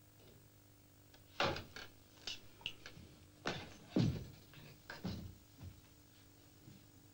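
A series of about nine knocks and clunks at uneven intervals, the loudest about a second and a half in and about four seconds in, with a short squeak-like tick near the middle.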